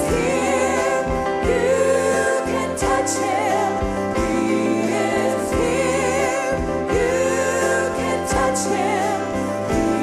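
A woman singing a gospel worship song with vibrato into a microphone, over a live band with backing singers.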